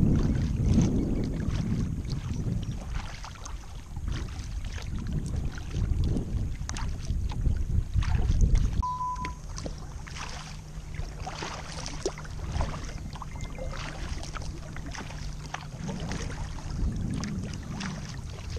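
Kayak paddling: the blades of a double paddle dipping and splashing in the water, stroke after stroke, with drips and water lapping at the hull. Wind rumbles on the microphone through the first half, and a low steady hum runs through the middle.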